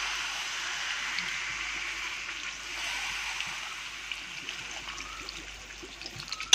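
Water poured from a jug into a kadhai of fried chicken masala, splashing and hissing in the hot pan and slowly dying down, with small scattered ticks. It ends with a sharp clink of the spatula against the kadhai.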